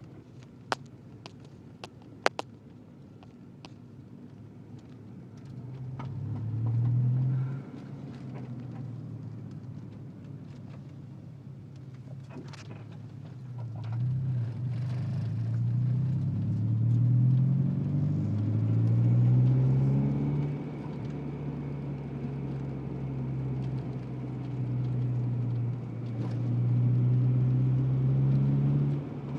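Integra's engine running, rising and falling in pitch several times and then holding steady near the end, after a few sharp clunks in the first couple of seconds.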